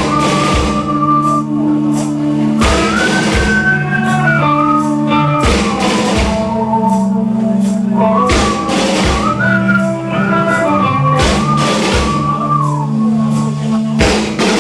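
Sludge-metal band playing live: slow, sustained heavy guitar and bass chords under a high wavering line that glides up and down, with drum and cymbal crashes every couple of seconds.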